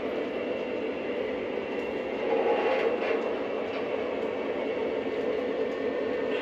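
O gauge three-rail model coal train, pulled by two Lionel FA2 and a Lionel GP7 diesel locomotives, running along the track with a steady rumble of wheels and motors. It gets a little louder about two seconds in.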